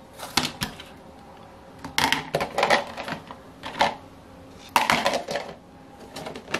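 Plastic parts tubs being moved about and small metal engine parts handled on a work mat: a string of irregular clicks and knocks.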